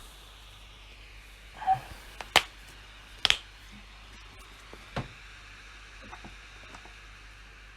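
Sparse, isolated clicks from a PC keyboard and mouse during desk work: a soft knock, then three sharp clicks about a second apart (one doubled), then a few faint ticks, over a steady low hum.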